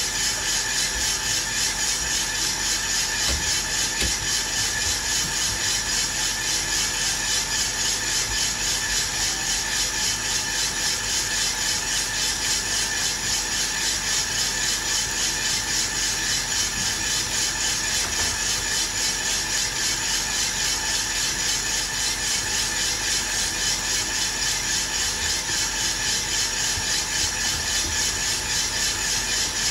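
Aillio Bullet R1 V2 drum coffee roaster running: coffee beans tumbling and rattling in the rotating drum over a steady fan rush, with a fine, even pulse. This is the drying phase, with the beans near 137 °C and well short of first crack, so no cracks are heard.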